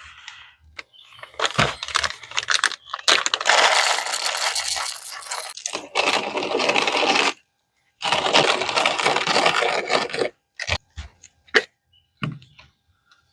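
Camp coffee-making gear being handled: metallic clinks, scraping and rustling in several dense bursts, with abrupt breaks between them.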